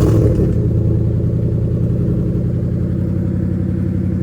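5.0-litre Coyote V8 in a Factory Five Cobra idling cold with a steady, even beat. It is loudest right at the start and settles within the first half second.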